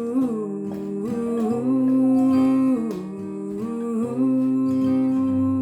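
Background music from a country cowboy song: the singer hums a wordless melody in long held notes, with acoustic guitar underneath.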